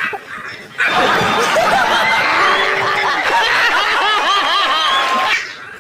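Many people laughing together, like a laugh track. The laughter starts abruptly about a second in, stays loud and dense for about four and a half seconds, then fades out near the end.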